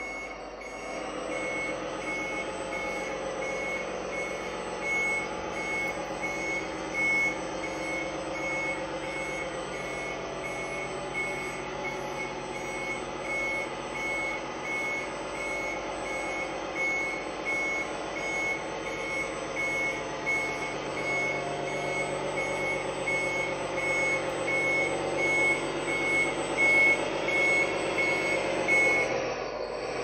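MAN F2000 RC truck's multifunction sound unit playing a diesel-truck engine sound with a regular reversing beeper, with short surges in the engine sound, more often towards the end. The engine sound and the beeping stop together just before the end.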